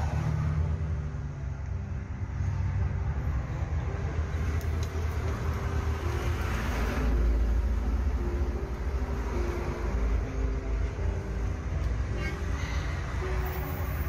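Steady low rumble of a car being driven, heard from inside the vehicle, swelling a little about halfway through.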